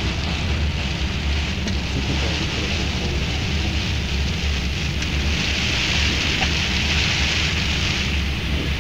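Steady flight-deck noise of a Boeing 777 in flight on approach: a low rumble under a hiss that grows louder about five seconds in.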